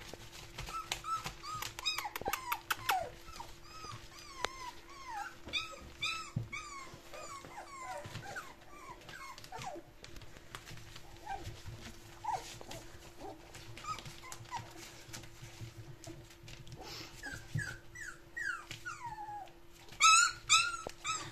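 A litter of nearly five-week-old puppies whimpering and squeaking: many short, high calls that rise and fall, with a burst of louder, higher yelps near the end.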